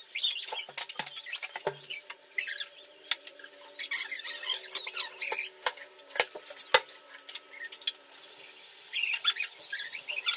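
Kitchen prep sounds: scattered sharp knocks and clinks of steel utensils and a knife cutting vegetables on a plate, with rustling and crinkling of a plastic noodle packet, loudest near the end, over a faint steady hum.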